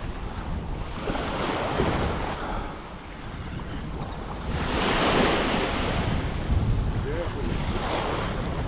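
Ocean surf breaking and washing up the beach in slow swells, loudest about five seconds in, with wind buffeting the microphone.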